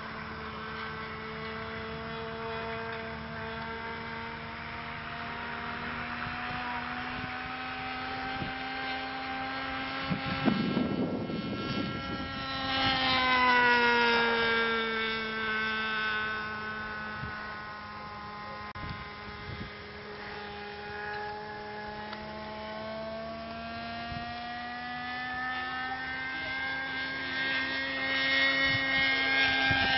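Propeller engine of a radio-controlled scale Beechcraft Bonanza model airplane droning in flight. About ten seconds in there is a brief rush of noise. The engine then grows louder as the plane passes close, and its pitch drops as it goes by. It swells again near the end.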